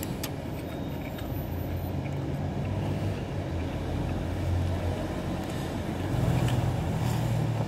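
Low, steady rumble of a motor vehicle engine running, slowly getting louder and loudest near the end.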